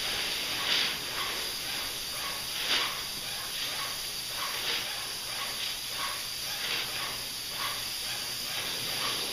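Paint spray gun hissing steadily as it sprays latex paint onto a wooden column, the hiss swelling and easing in regular pulses.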